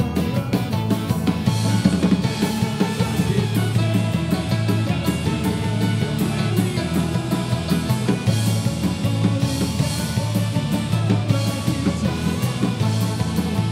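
Celtic punk band playing live: drum kit, strummed acoustic guitar and a singing voice.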